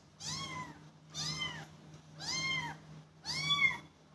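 A young kitten meowing four times, about once a second, each high call rising and then falling in pitch.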